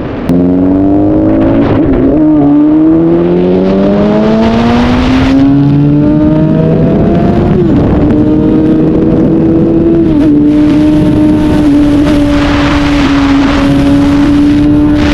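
Honda CBR1000RR's inline four-cylinder engine accelerating hard, its pitch rising through the gears with a drop at a shift about two seconds in and another about halfway, then holding a fairly steady pitch at speed for the rest.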